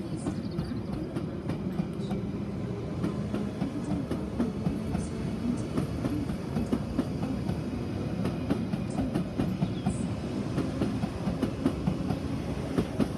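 London Underground Piccadilly line 1973 Tube Stock train pulling out of the platform. Its wheels give a steady rumble over a low hum, with many sharp clicks over the rail joints.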